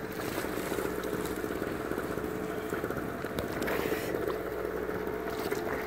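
Steady hum of the boat's motor running at idle, with water splashing and sloshing against the hull as a hooked bull shark thrashes at the surface alongside.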